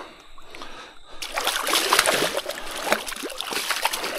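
Creek water splashing loudly and irregularly, starting about a second in, as a small hooked Murray cod is landed by hand in the shallows.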